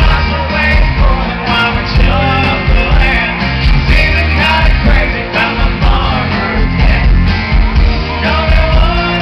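A live country-rock band playing loud through a concert PA: drums, bass, electric guitar and a horn section, with a male lead singer over it. Heard from the crowd, with a heavy, boomy low end.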